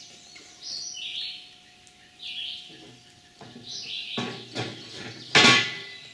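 2-inch square steel tubing rails being set down onto the steel end plates on the log: a few knocks, then two clanks, the loudest about five and a half seconds in with a brief metallic ring. A bird chirps about once a second throughout.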